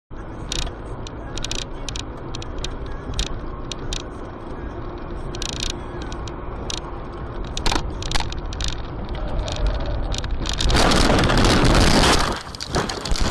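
Car on the road heard from inside the cabin: a steady engine and road rumble with frequent sharp clicks and rattles. About eleven seconds in, a loud rough crashing noise lasts about a second and a half, the sound of a collision.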